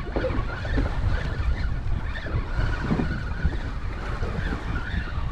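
Wind buffeting the microphone on an open boat, a steady low rumble, with waves lapping at the hull.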